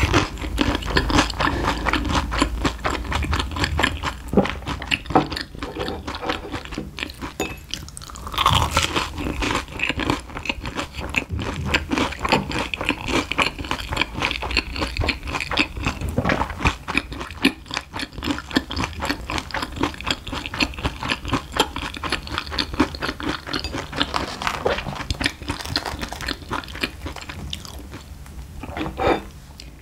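Close-miked crunching and chewing of a crispy fried Monte Cristo sandwich, a dense run of crisp crackly crunches throughout.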